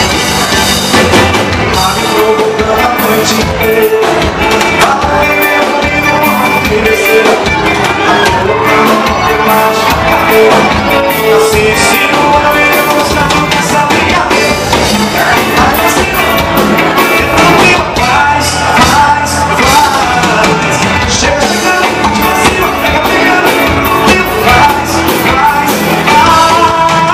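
Live band music: a male singer singing into a microphone over a drum kit and keyboard, with a steady beat.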